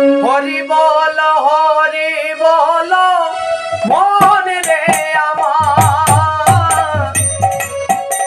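A man singing a Bengali devotional song in long, wavering, ornamented lines over a sustained electronic keyboard accompaniment. About five and a half seconds in, a regular percussion beat with low thumps and sharp rattling strikes joins in.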